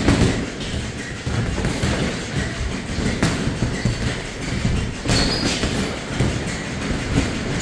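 Boxing sparring: feet shuffling and thudding on the ring floor in a steady low rumble, with a few sharp smacks of gloves landing, about three and five seconds in.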